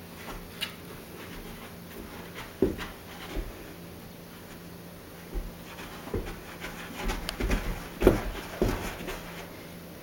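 Young English Mastiff playing with a plush toy on carpet: scattered soft thumps and rustles from paws and muzzle, more frequent in the second half, with the loudest bump near the end.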